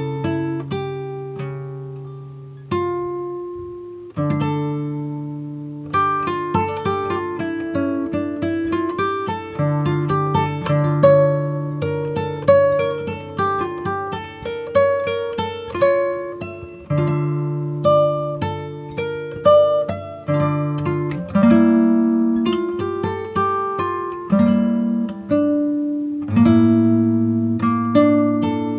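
Background music: a gentle instrumental of plucked guitar-like notes, each starting sharply and fading, over held bass notes. About two seconds in, a single note rings out alone for a moment before the playing picks up again.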